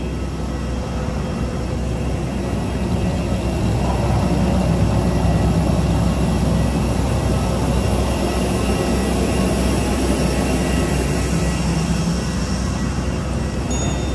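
Steady roar of airport apron noise: aircraft engines and ground vehicles running, with a faint high whine.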